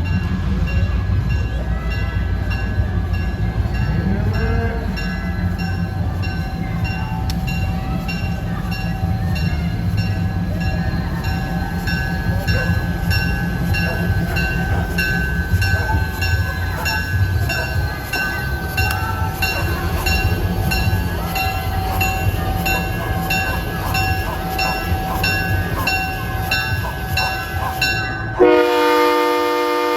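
Train rolling in, a steady low engine rumble under a locomotive bell ringing over and over. Near the end the train horn sounds in one loud blast.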